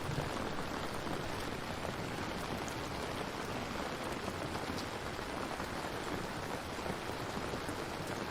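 Steady rainfall: an even, continuous patter of rain with faint scattered drop ticks.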